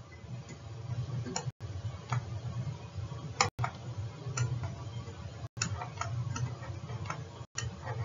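Light, irregular taps and short scratches of a stylus writing on a screen, over a steady low hum; the background cuts out for an instant about every two seconds.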